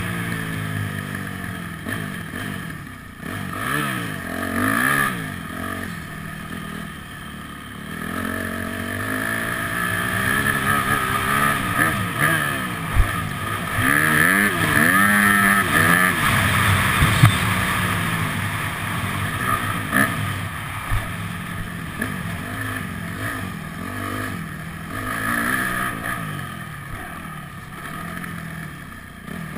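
Dirt bike engine revving up and down over and over as the rider accelerates, shifts and backs off on a motocross track, heard from the rider's helmet. A couple of short sharp knocks come in the middle.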